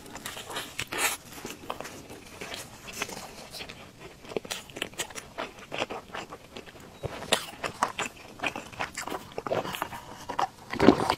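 Close-miked chewing and biting of a fried dough stick (youtiao), a steady run of short crunches and mouth clicks. Just before the end there is a louder sip through a straw.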